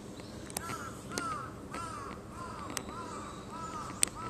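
A crow cawing in a steady series, about eight caws at roughly two a second, with a single sharp click near the end.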